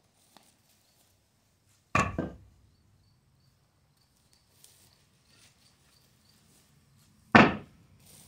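Two loud knocks about five seconds apart, the first a quick double knock, over faint, regular high chirping.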